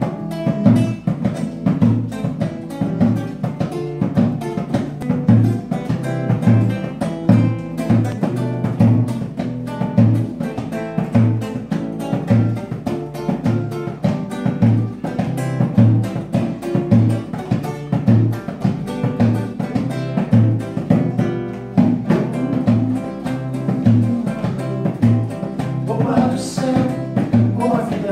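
Samba played on a strummed acoustic guitar over a wooden hand drum, with a deep drum stroke on each beat of a steady pulse.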